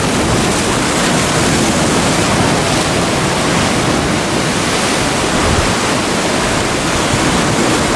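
Heavy sea surf breaking and foaming over a rocky shoreline: a loud, steady rush of churning water.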